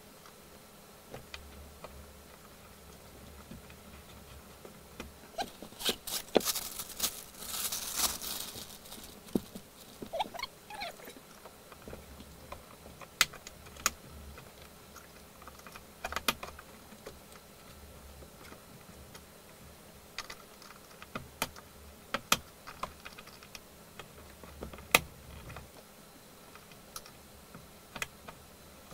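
Scattered sharp clicks and knocks of hand work on a car's tailgate fittings and trim, with a longer stretch of rustling about six to eight seconds in.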